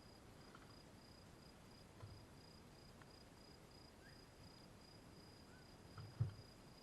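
An insect chirping steadily at a high pitch in an even pulse, with a few faint pops and knocks from a wood campfire, the loudest just after six seconds.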